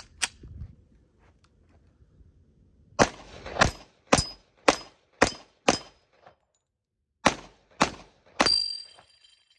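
FN FNX-45 Tactical .45 ACP pistol firing nine shots, six about half a second apart, a short pause, then three more; a metallic ring hangs on after the last shot. The pistol cycles every round without a hang-up.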